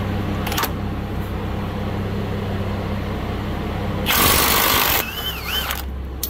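Ryobi 18V cordless 1/2-inch impact wrench hammering in one loud burst of about a second, breaking a truck's tie rod end nut loose easily, after a brief blip of the trigger near the start. A steady low hum runs underneath.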